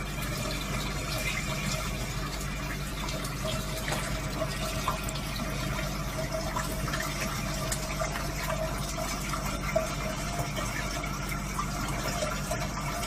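Running water: a steady, unbroken rush, with a faint low hum beneath it.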